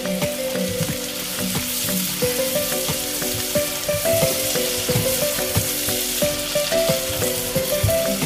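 Onions, peppers and whole boiled potatoes sizzling in a stainless steel frying pan, with a spatula stirring and turning them and clicking against the pan. A soft melody plays underneath.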